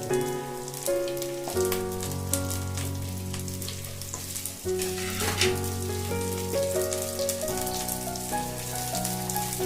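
Chopped onions sizzling and crackling as they fry in hot oil in a kadai with ginger, garlic and green chillies, over background music with steady, changing notes.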